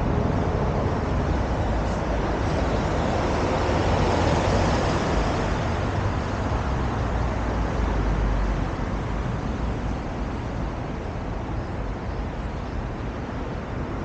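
Road traffic on a wide multi-lane road: passing cars and buses with tyre and engine noise, louder as vehicles go by about four and eight seconds in, then a quieter steady traffic hum.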